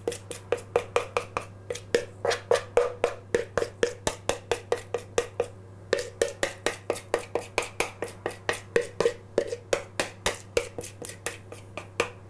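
Spoon or spatula scraping thick batter out of a mixing bowl, quick repeated strokes against the bowl at about four a second, with a brief pause about six seconds in.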